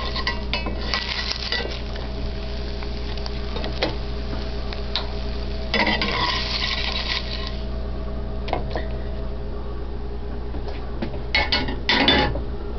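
Slotted spatula scraping and clattering against a frying pan as an omelet is lifted out, with a longer scrape about six seconds in and a burst of clatter near the end, over a steady low hum.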